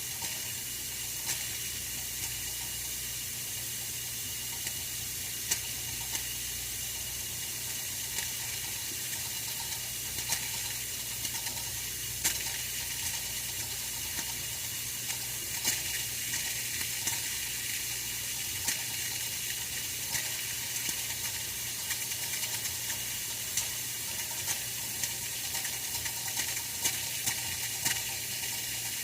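Oil-filled radiator heater running: a steady hiss with small irregular ticks scattered throughout, over a faint low hum.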